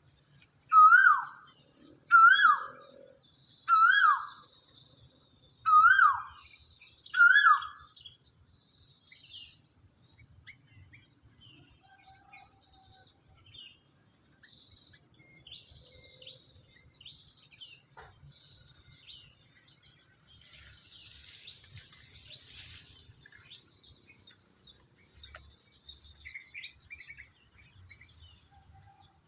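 A bird calls a loud whistled note five times, about one and a half seconds apart. Each note slides up and then drops sharply. After about eight seconds the calls stop, leaving fainter scattered chirps of other birds and a steady high-pitched insect-like whine.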